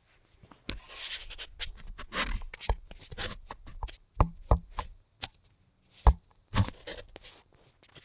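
Handling noise from a phone being moved and propped up: irregular clicks, knocks and rustling, with one heavier thump about six seconds in.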